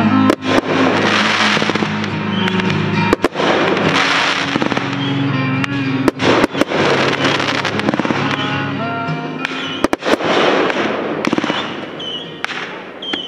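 Fireworks finale: aerial shells bursting in a run of sharp bangs, several close together, with bursts of crackling between them. Music with long held notes plays underneath and fades out about three quarters of the way through.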